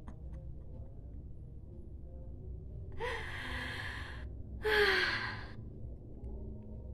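A woman's two long breathy sighs, about three and about four and a half seconds in, each opening on a short voiced note, the second louder. Quiet room tone in between.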